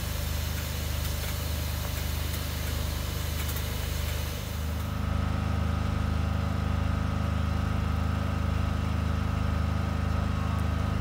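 Steam locomotive standing at a platform: steam hissing over a steady low mechanical hum. About four and a half seconds in the hiss drops away, leaving the hum with a faint steady whine.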